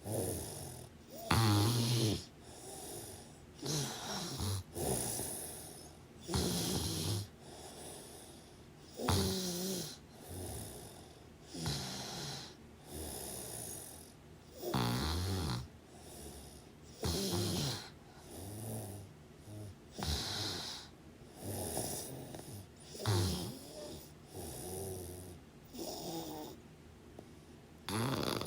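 Snoring in a steady rhythm, one snore every two to three seconds, with quieter breathing between.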